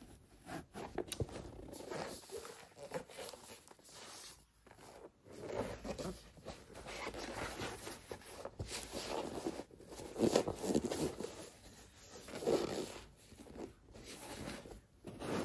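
Irregular rustling and scraping from a pair of basketball shoes being handled, with short clicks and scuffs coming and going.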